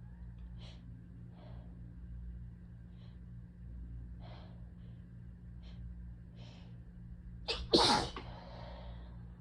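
A person with a head cold takes several short, faint breaths in, then sneezes once, loudly, near the end, with a quick gasp just before the sneeze.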